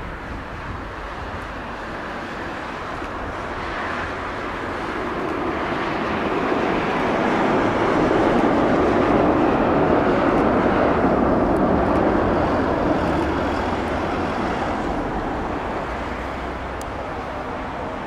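Boeing 777 twin-engine jet airliner rolling out on the runway after landing. Its steady jet noise swells to a peak around the middle and then fades as it passes.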